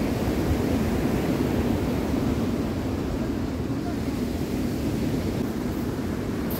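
Ocean surf breaking and washing on a pebble shore, a steady rumbling wash, with wind buffeting the microphone.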